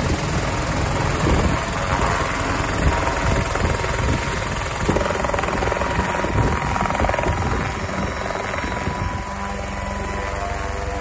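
Mosquito ultralight single-seat helicopter running, with rotor noise and a steady whine. The sound drops slightly and steadies about nine seconds in.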